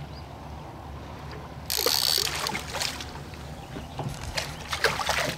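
Water splashing at the surface beside the boat, starting suddenly about two seconds in and going on in irregular splashes: a hooked fish thrashing as it is brought up to the boat.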